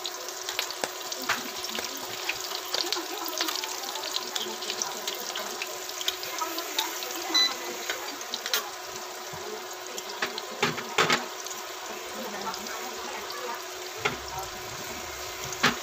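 Breaded cabbage rolls frying in shallow oil: a steady sizzling hiss with scattered crackles and pops. A few sharp clicks of metal tongs against the pan come as the rolls are turned.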